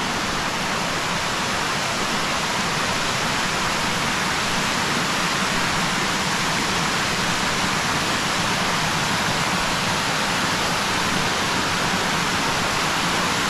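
Water from a small waterfall rushing steadily, a loud, even hiss with no break.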